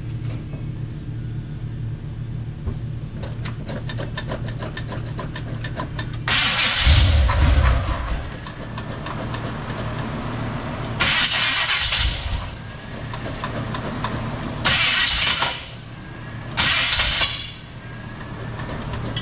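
Carbureted engine of a G-body Chevrolet Malibu being cranked by its starter in four bursts of one to two seconds each, freshly primed with gas poured into the carburetor, without starting.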